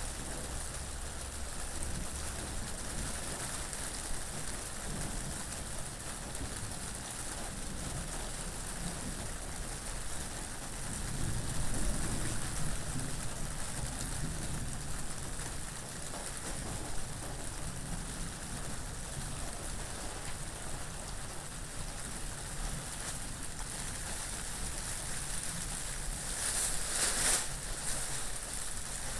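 Steady rain with wind. The wind swells into a low rumble about twelve seconds in, and there is a brief louder surge near the end.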